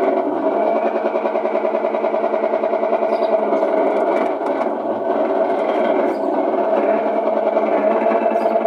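Maytag Atlantis top-load washer running in its agitate cycle, its motor and transmission giving a steady mechanical hum with a fast, even pulsing. The agitator is not turning with any force, which the repairer puts down to a stripped transmission shaft.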